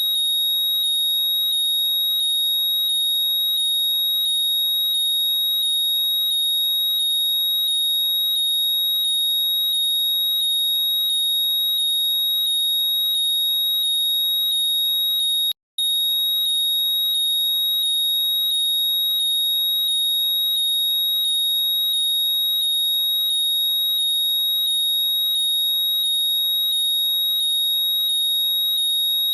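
Apple AirPods 'Find My' locating sound playing as a loud, high-pitched repeating chirp, about two chirps a second over a steady high tone. It breaks off for an instant about halfway through, then carries on.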